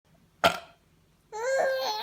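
A short sharp sound about half a second in, then a baby's long, high-pitched squeal of laughter starting a little after a second.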